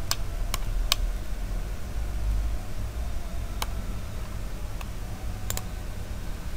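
Computer mouse clicking: three sharp clicks in the first second, one more about three and a half seconds in, and a quick double click near the end, over a steady low hum.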